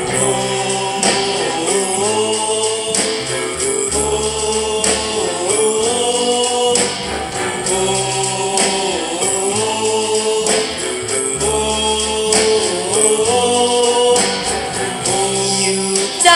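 Background music: a song with voices singing over a steady accompaniment.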